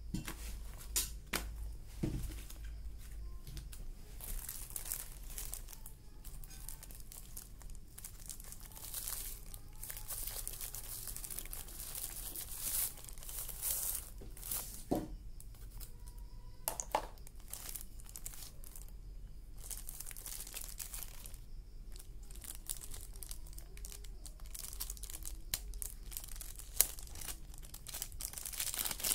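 Clear plastic wrapping around a new pocket radio crinkling and rustling as it is handled, in irregular bursts with a few sharp clicks.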